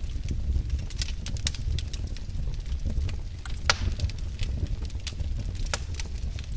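Wood fire crackling in a fireplace: irregular sharp pops and snaps over a steady low rumble of the flames, with one louder pop a little past halfway.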